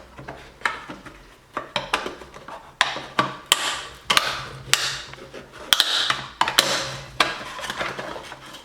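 A screwdriver prying apart the plastic halves of a blast gate: irregular sharp clicks and cracks of plastic giving way, with short scraping sounds of the tip working along the seam.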